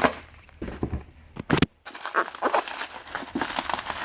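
A cardboard shipping box and its plastic packing being cut and pulled open by hand: a few sharp taps and scrapes, then steady crackly rustling and crinkling from about halfway.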